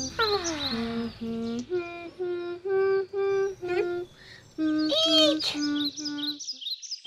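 Gentle soundtrack music: a simple melody of short held notes, opening with a falling glide, with short high bird chirps over it. The music stops about half a second before the end.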